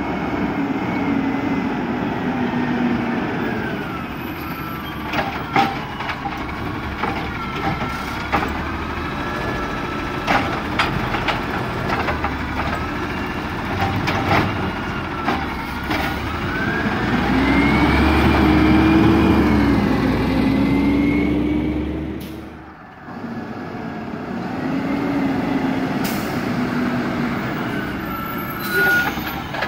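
Garbage truck engine revving up and down in long swells, loudest and highest about two thirds through, then dropping away briefly. Scattered metallic knocks and clanks are heard throughout.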